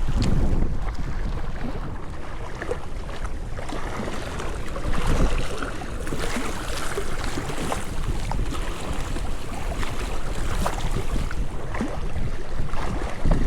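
Wind buffeting the microphone: a steady rushing noise with heavy low rumble, gustier near the start and end, and scattered small clicks.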